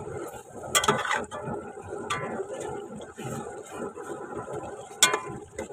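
Chicken pieces sizzling and bubbling in hot oil and tomatoes in an aluminium pot on a gas flame, at the start of cooking a chicken karahi. A few sharp clinks, about a second in, near two seconds and near five seconds.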